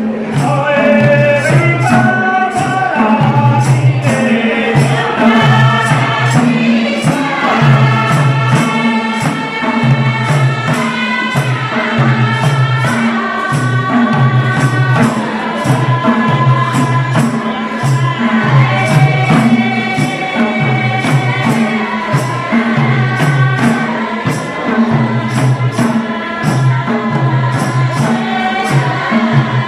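Nepali folk song sung by a group of voices, with madal hand drums beating a steady, repeating rhythm underneath.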